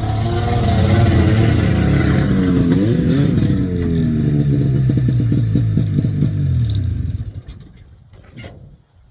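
Small off-road vehicle engine running close by, its pitch briefly rising and falling about three seconds in, then fading out about seven seconds in.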